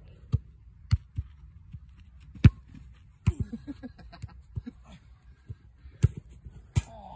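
Football being kicked and bouncing: a series of sharp thumps, about seven in all, the loudest about two and a half seconds in.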